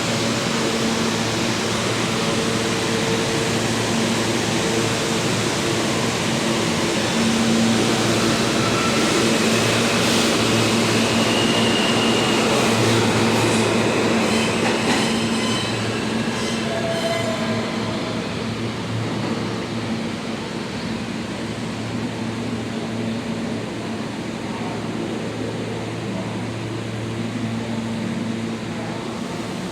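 New York City subway train running along the track at a station, loudest around the middle, with brief high squeals from the wheels or brakes. It then eases to a lower, steadier rumble.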